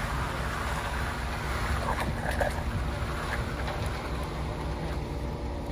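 Steady low drone of a concrete mixer truck's engine running, with the soft scraping swish of a ribbed bull float pushed and drawn over freshly poured wet concrete.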